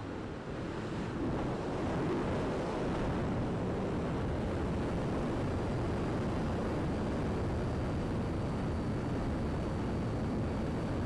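Airflow rushing over the microphone of a camera mounted on a V-tail RC glider in flight, getting louder about a second in and then holding steady.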